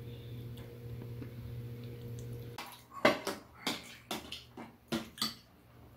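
A steady low hum that stops abruptly about two and a half seconds in. Then come a series of sharp clinks and knocks as metal spoons and chopsticks strike bowls and a stainless pot during a meal.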